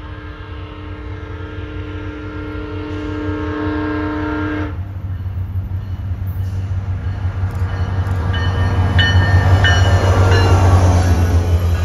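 Amtrak diesel locomotive sounding its horn, a steady chord held for almost five seconds and then cut off, over the low drone of its engine, which grows louder as the train approaches. A repeated high ringing tone comes about every two-thirds of a second near the end.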